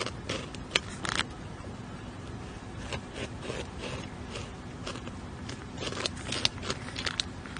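A beaver gnawing into a tree trunk with its incisors: an irregular run of scrapes and crunches on the wood, with a few sharper cracks.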